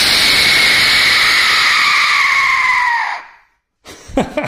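Skull-shaped 3D-printed resin Aztec death whistle blown hard in one long, loud, terrifying scream-like shriek. It holds steady, then sags slightly in pitch and dies away about three seconds in.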